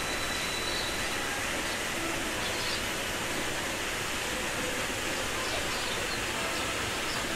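Steady rush of water from a small cascade pouring into a rock pool.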